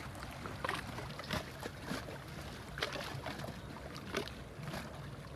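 Low, steady engine rumble with a light rush of wind and scattered irregular clicks and knocks from handling a phone.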